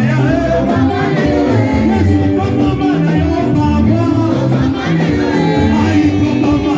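Gospel worship music from a church band: a bass line playing repeated notes under voices singing.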